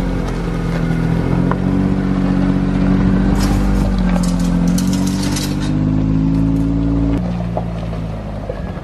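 Engine of a side-by-side utility vehicle (UTV) running under throttle, its pitch rising slightly and holding, then easing off about seven seconds in. Bursts of clattering come midway through.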